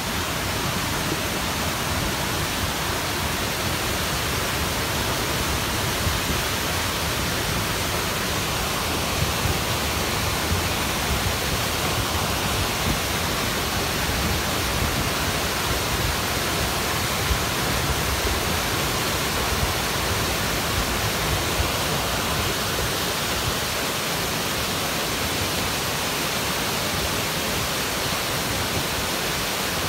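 A flash flood's debris front of muddy water, logs and brush rushing down a dry wash, giving a steady, loud rush of noise with a few small peaks.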